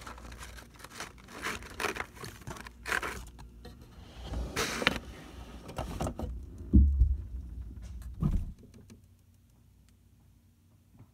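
Foil and plastic seed pouches rustling and crinkling as hands flip through them in a storage bin, with two dull thumps about seven and eight seconds in.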